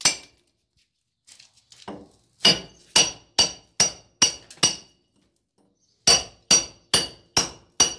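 Claw hammer striking a steel chisel held against a brick wall, chipping out a hole: sharp, ringing metal-on-metal blows. One blow comes at the start, then two runs of quick blows about two to three a second, with a pause of over a second between them.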